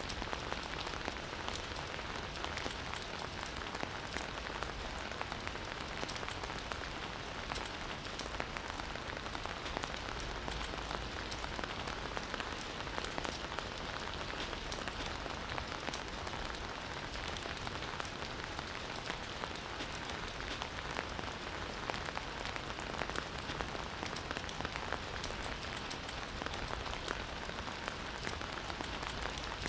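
Campfire burning, with a steady hiss and many small, irregular crackles and pops.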